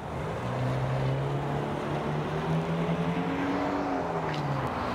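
A motor vehicle's engine running with a steady hum, its pitch holding level and then dropping away about four seconds in, as of a vehicle passing by.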